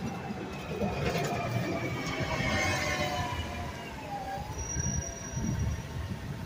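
A city bus going by close to the sidewalk with a high squealing whine, several tones together sliding slightly down in pitch for a few seconds, over the low rumble of the bicycle rolling along the pavement with wind noise.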